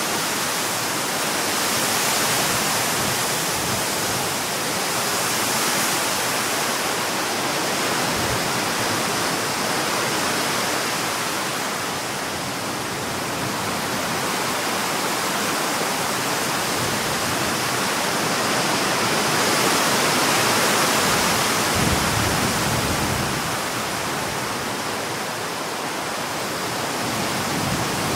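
Strong storm wind rushing through trees, a continuous roar that swells and eases in gusts.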